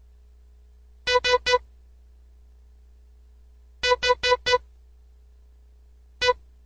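Morse code sent as short beeps of one pitch, all dots. There are three dits, then a gap and four dits, then a gap and one dit, spelling S, H, E: the word "SHE".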